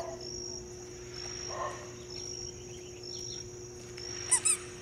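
Insects chirping in a steady rhythm, about two chirps a second, over a low steady hum. Near the end come two short, loud, high-pitched squeaks.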